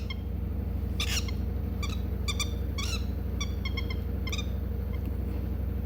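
Pet lovebird chirping: a string of short, high chirps, one louder call about a second in and a quick run of chirps in the middle, over a steady low hum.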